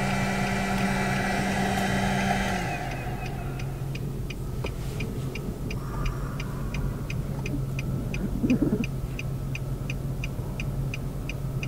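A steady droning machine, like an engine, with several even tones, cuts off about two and a half seconds in. Then a car engine hums at idle while the indicator or hazard-light flasher ticks about twice a second.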